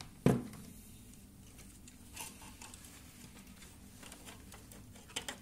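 A sharp knock a moment in, then light rustling and small clicks as the plastic frame and wiring of an opened quadcopter are handled and turned over.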